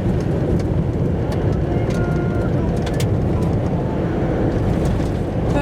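Steady low vehicle rumble, with scattered faint clicks.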